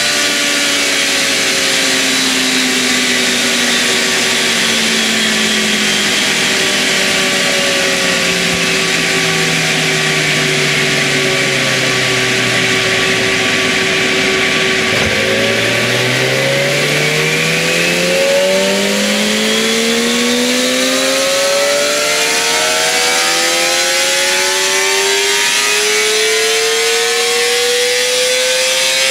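Kawasaki ZX-25R's 250 cc inline-four on stock exhaust, run in sixth gear on a chassis dyno: the revs sink slowly for about the first half, then the throttle opens about halfway and the engine pulls with a steady rise in pitch to high revs near the end. A steady hum runs underneath.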